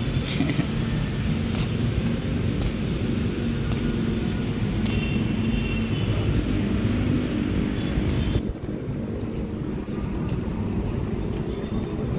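Steady outdoor city ambience: a continuous low rumble of road traffic, with no single event standing out.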